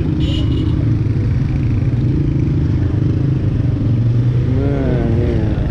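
Motorcycle engine running at low speed, heard from the rider's own bike as it rolls through a narrow street: a steady, loud low hum. A short high tone sounds briefly about a quarter of a second in.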